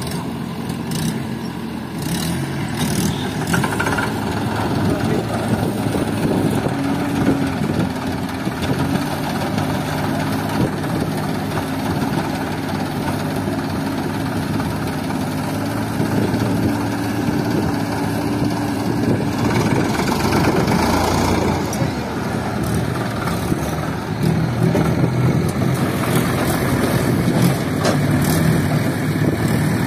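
HMT tractor's diesel engine running steadily close by, with the engine of a backhoe loader working alongside; the engine note shifts a little now and then.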